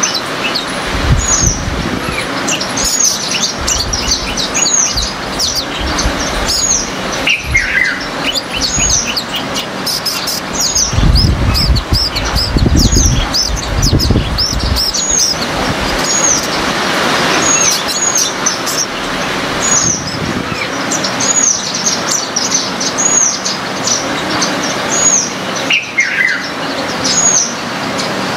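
Birds chirping: one bird repeats a short, high, hooked call about once a second among other chirps, with a low rumble for a few seconds in the middle.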